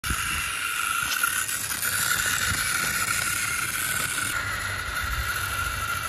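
Remote-control model Swaraj 855 tractor's small electric motor and gearbox running with a steady whine as it drives over loose dirt and sand.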